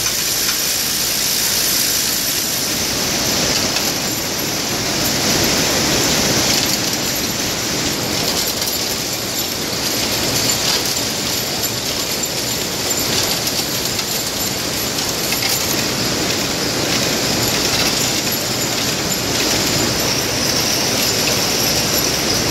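Steady machinery noise on a factory floor, a rotary parts feeder running among metal-forming machines, with a constant high hiss.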